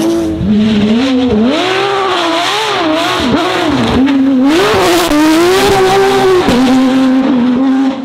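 Porsche 911 GT3 rally car's flat-six engine driven hard, its note climbing and dropping repeatedly through gear changes and lifts, then holding a steady pitch near the end.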